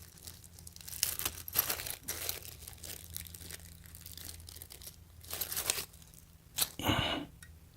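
Handling noise from swapping screwdriver bits during a small-electronics repair: three or four short rustling bursts, with a faint steady hum underneath.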